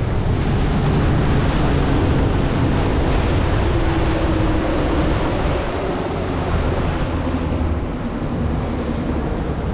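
Motorboat underway: a steady engine drone under a continuous rush of wind and water.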